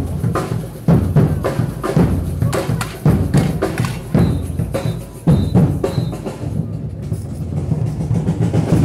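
Street percussion band playing drums of several sizes, big bass drums and stick-struck drums, in a steady loud beat with sharp accented hits.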